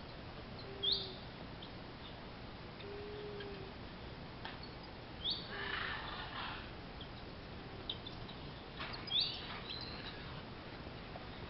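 Birds chirping: three short, high chirps that sweep downward, about a second in, midway and near the end, over a steady outdoor hiss, with a few soft, low whistled notes in the first few seconds.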